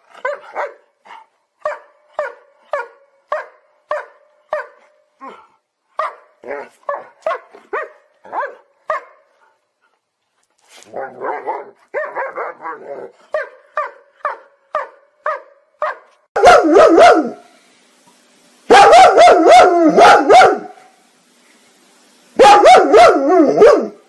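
German Shepherd dog barking in short, even barks about two a second, with a brief pause near the middle. In the last third come three much louder, longer bouts of barking.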